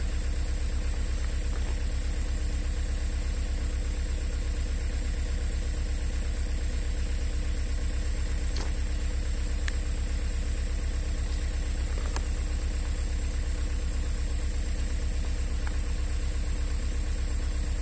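An engine idling steadily, a low, even throb that does not change, with a few faint ticks over it.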